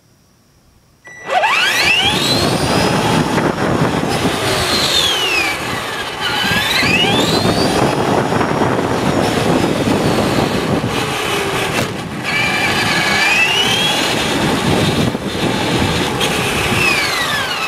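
A radio-controlled car's motor, heard up close from on board, whining up and down in pitch as it speeds up and slows, over the rumble of its tyres on asphalt. It starts suddenly about a second in.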